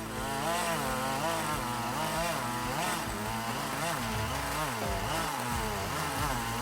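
Chainsaw running under load, its engine pitch rising and falling over and over as it cuts into wood.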